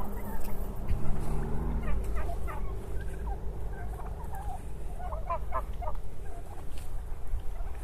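Domestic turkey toms gobbling: scattered short calls from about two seconds in, with a fast rattling gobble series near the middle. A low steady hum underlies the first two seconds and then stops.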